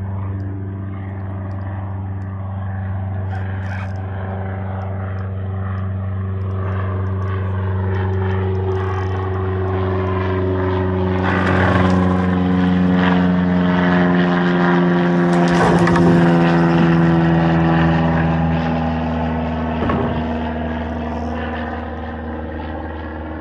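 A steady engine drone with a low hum and overtones that slowly shift in pitch, growing louder toward the middle and then easing off. Twice around the middle, a big hooked bluefish splashes on the surface beside the kayak.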